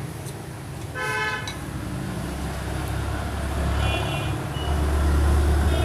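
Road traffic rumbling, with a short horn toot about a second in and shorter, higher beeps near four seconds and at the end, as the low engine rumble grows louder.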